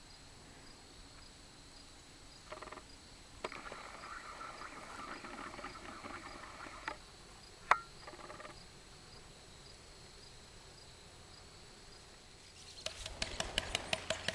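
Quiet outdoor background with a faint steady high tone and a few sharp clicks, then, about 13 seconds in, a run of quick irregular clicks: the rattle of a Canon PowerShot's autofocus in movie mode.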